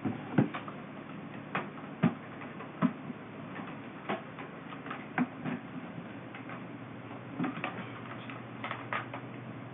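Irregular clicks and knocks of a telephone being handled and pushed into a drawer, a dozen or so sharp taps spaced unevenly.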